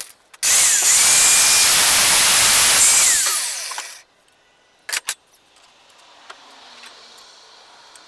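Angle grinder running at full speed for about three seconds, then winding down to a stop. Two sharp knocks follow about a second later.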